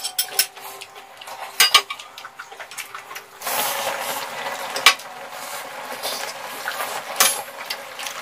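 A metal fork clinking and scraping against a ceramic bowl, with a few sharp clicks, and a steady hiss from about three and a half seconds in.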